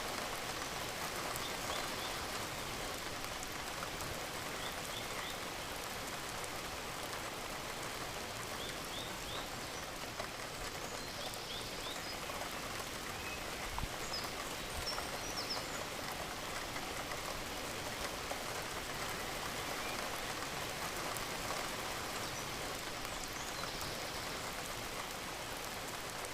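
Steady gentle rain falling and pattering, with no thunder or music, and a few faint short high chirps now and then.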